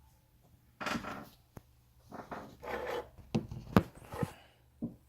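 Scraping and sharp clicks of an iPhone 6's display assembly being pried up from its frame: several rough scrapes, then a run of clicks, the loudest a little after halfway.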